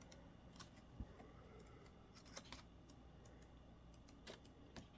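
Near silence with a few faint, scattered clicks and taps: the quiet handling of a photo book's pages as it is leafed through.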